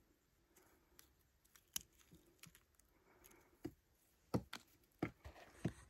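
Faint, scattered clicks and crackles of a crumbly turquoise nugget and bits of rock being handled in the fingers. A few sharper taps come in the second half.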